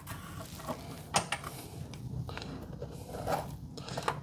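A few scattered light clicks and knocks from handling small parts and a tub of bearing grease, over a low steady hum.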